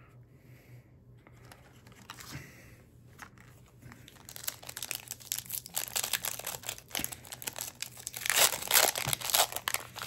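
Foil wrapper of a trading-card booster pack crinkling and tearing open, quiet at first, then a dense crackle from about four seconds in that is loudest near the end.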